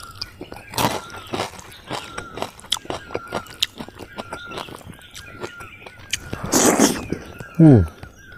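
Close-up eating sounds of a person chewing cooked katla fish head eaten by hand: repeated wet mouth smacks and clicks, with a louder, noisier burst lasting under a second after about six seconds. Near the end comes a short low sound that falls steeply in pitch, the loudest moment.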